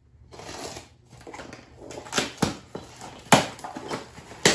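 A small cardboard box being opened by hand: cardboard scraping and tearing, broken by several short, sharp knocks, the loudest about three seconds in.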